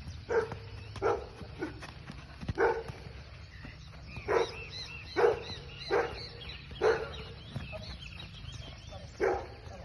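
A dog barking repeatedly: about nine short barks at irregular intervals.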